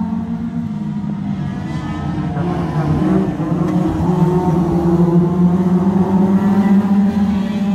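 Several 2.0-litre Hot Rod race car engines running as the cars race round the oval, getting louder after about three seconds as the cars come nearer.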